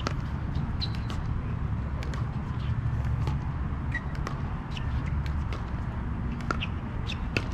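Pickleball play on an outdoor hard court: scattered sharp pops of paddle and ball and brief shoe squeaks over a steady low rumble.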